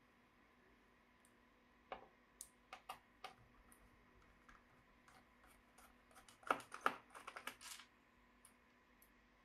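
Light clicks and taps of hands and small tools working on a laptop during disassembly: a few single clicks, then a quick run of louder clicks about six and a half seconds in.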